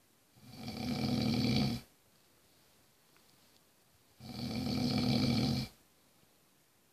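A man snoring in his sleep: two long snores about four seconds apart, each swelling up and then cutting off sharply.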